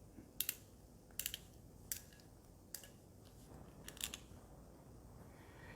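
Hand crimper being squeezed to crimp a terminal onto a 16 mm² cable: about five sharp clicks, some doubled, spaced irregularly over roughly four seconds.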